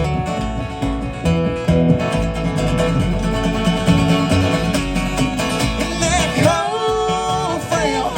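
Live band music between verses: acoustic guitar picking chords over a bass line. About six seconds in, a held melody line with a slight waver enters above the guitar.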